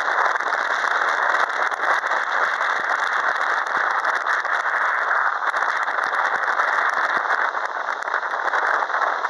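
Airbus A320-232's two IAE V2527 turbofan engines at take-off thrust as the jet accelerates down the runway: a loud, steady rushing noise full of rapid crackle.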